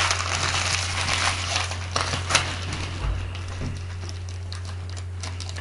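Crinkling and rustling of hockey card pack wrappers as packs are handled, busiest in the first couple of seconds and softer after that, over a steady low hum.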